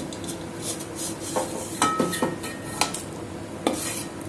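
A wooden spatula scraping and tapping in a dry metal kadai while stirring roasting green cardamom pods. It goes in irregular scrapes and knocks, about half a dozen over the few seconds.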